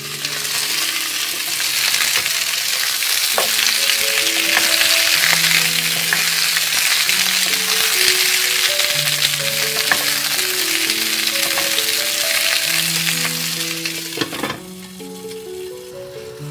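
Friggitelli peppers sizzling and spitting in hot oil in a frying pan, stirred with a wooden spoon. The sizzling cuts off abruptly near the end.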